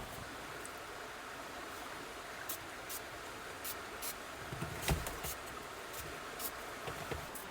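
Steady rush of a glacial meltwater river flowing, with scattered small clicks and a dull knock about five seconds in.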